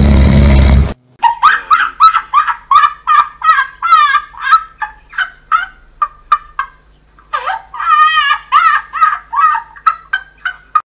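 A rapid series of short, high, bird-like calls, about two to three a second, pausing briefly around seven seconds in and stopping just before the end. It is preceded by a louder mixed sound that cuts off suddenly about a second in.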